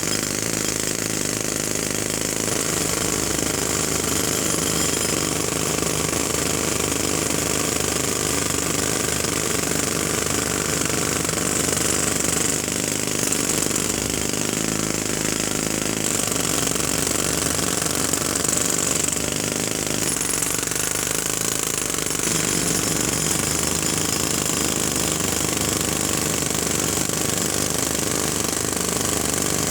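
Pneumatic jackhammer hammering continuously, a rapid steady rattle with no pauses.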